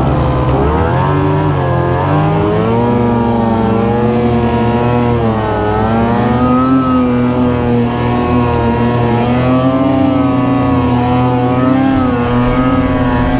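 Snowmobile engine running under throttle while riding, its pitch climbing over the first two seconds and then holding fairly steady with small rises and dips.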